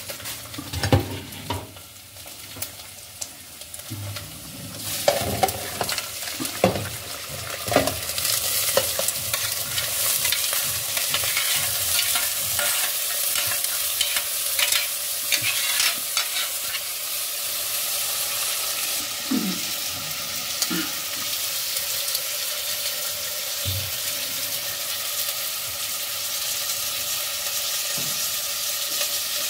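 Meat frying in a small aluminium pot on a gas burner, a steady sizzling hiss that swells about five seconds in and then holds. A metal fork and spoon clink and scrape against the pot as the pieces are turned, mostly in the first several seconds.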